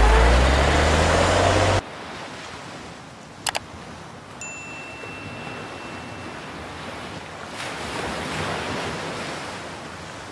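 Steady rushing ocean-wave noise, with two quick clicks about three and a half seconds in and a thin held ding about a second later. It is preceded by a vehicle engine speeding up on a street, which cuts off abruptly under two seconds in.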